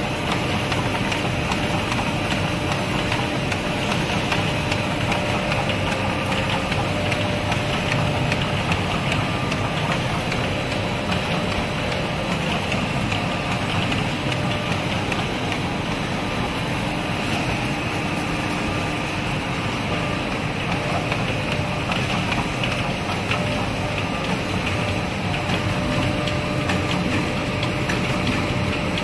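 DBZS label finishing machine with silkscreen and hot foil units running: a steady mechanical whir of rollers and drives with a faint constant tone.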